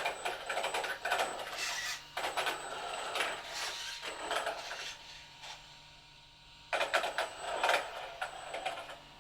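Electric RC stunt truck driving in short runs: its motor and gears whir and the tyres scrub the floor, in four bursts of one to two seconds with brief pauses between.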